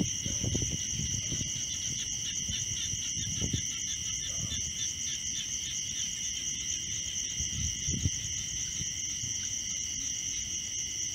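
Steady chorus of insects trilling in several high, unbroken bands. Under it come a few low thumps and water sounds, the loudest right at the start as a rat leaps from the bait platform into the water-filled tank trap, with softer ones a few seconds in and again near the middle.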